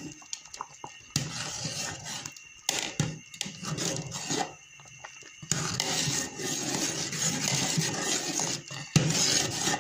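A spoon stirring a pot of milk-and-rice kheer, scraping and clinking against the steel pot in uneven strokes, more continuous from about halfway.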